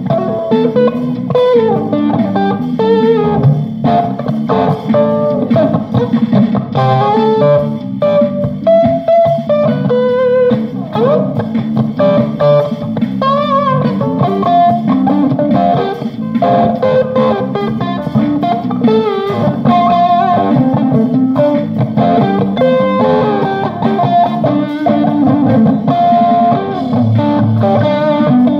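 Electric guitar played live as an improvised lead line, single notes with bent and wavering pitches, over a continuous low backing part.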